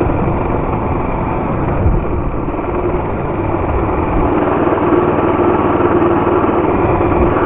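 Small 50 cc mini bike engine running while under way, with wind rumble on the microphone. About four seconds in the rumble eases and the steady engine note comes forward.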